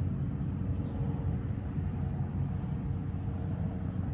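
Steady low rumbling background noise with a faint high chirp about a second in.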